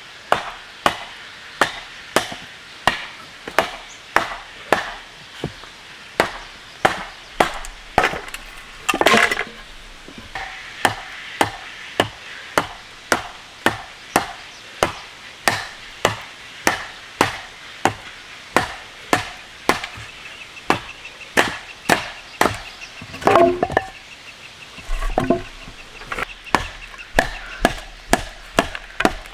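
Wood being chopped in a steady run of sharp blows, about two a second, with two short breaks, about a third of the way in and again near three-quarters, filled by scraping or rustling.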